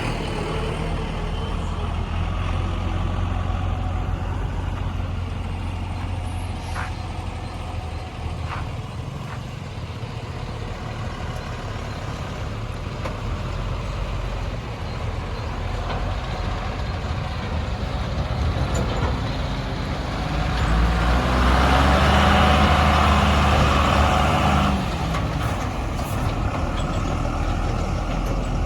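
Heavy diesel machinery running: a backhoe loader working beside a tipper truck. Two short sharp knocks come about seven and eight seconds in, and for a few seconds about three-quarters of the way through the engine works harder and louder before dropping back.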